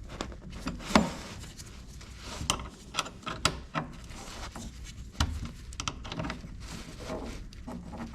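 Scattered knocks, clicks and rubbing of hand tools and parts being handled during car reassembly, with one sharp knock about a second in.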